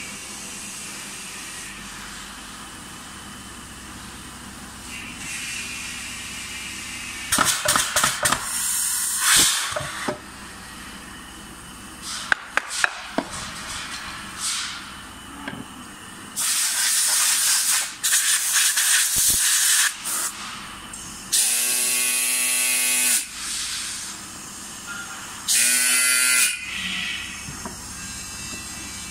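Compressed air hissing at a pneumatic sand moulding machine, in several loud bursts of one to three seconds, two of them with a whistling tone. A few sharp metal knocks come between the bursts.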